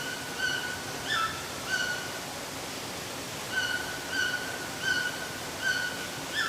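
Toucan calling: a series of short, clear, repeated yelping notes, some slightly bent in pitch, coming in groups with a brief pause a couple of seconds in, over a steady background hiss.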